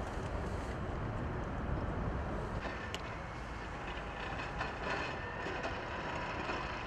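Steady low rumble of jet aircraft noise. About two and a half seconds in, a brighter hiss joins it as an ambulance jet lands on the runway.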